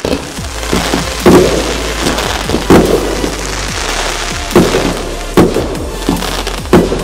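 Fireworks display: a run of sharp shell bursts, about five loud bangs in seven seconds, with smaller crackles and pops between them.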